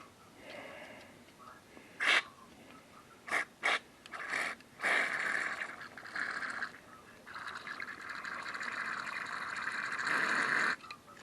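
Aerosol carburetor cleaner hissing in bursts through the passages and jets of a Briggs & Stratton plastic carburetor to clear dirt from a no-start engine. There are four short hisses, then two long sprays of a few seconds each.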